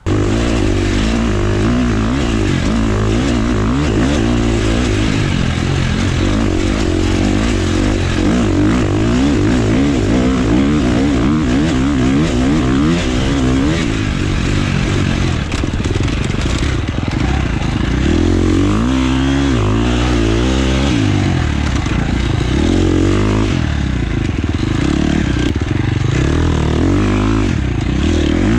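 Husqvarna FX 350 four-stroke single-cylinder dirt bike engine being ridden hard, revving up and down continually as the rider accelerates, shifts and backs off through the trail's turns and bumps.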